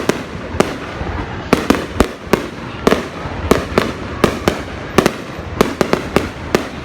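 Fireworks going off: a rapid, irregular string of sharp bangs, about three a second, over a constant crackling background.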